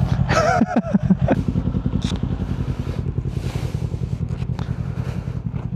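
Kawasaki Ninja 400 parallel-twin with a Yoshimura aftermarket exhaust, running steadily at low revs with an even, regular pulse.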